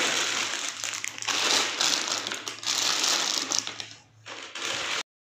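Plastic snack packets crinkling and rustling as they are pushed and packed into a plastic basket, in three spells. The sound cuts off abruptly just before the end.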